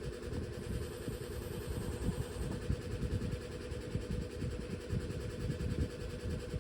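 Pug snoring in its sleep: a low, rough snore that goes on without a clear pause.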